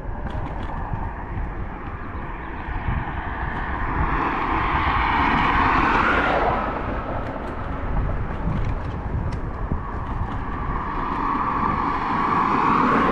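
Wind buffeting a GoPro microphone on a moving electric scooter, a constant low rumble. Two vehicles pass: the first swells and peaks about six seconds in, then falls away, and the second builds near the end.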